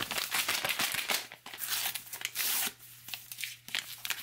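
Drink-mix pouch torn open by hand: paper rustling and crackling, with one longer rip a little after two seconds in, then lighter crinkling as the opened pouch is handled.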